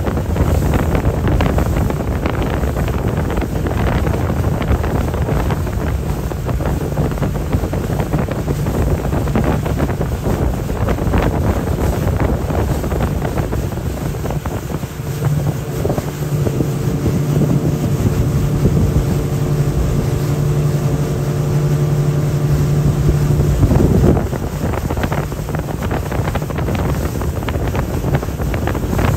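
Wind buffeting the microphone over the rush of water and the drone of sportfishing boats' engines running at speed. From about halfway a steady pitched engine hum stands out, then stops abruptly about three-quarters of the way through.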